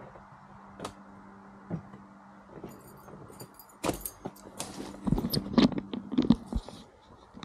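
Irregular knocks and clatter with some metallic jingling, starting about four seconds in and loudest in the second half.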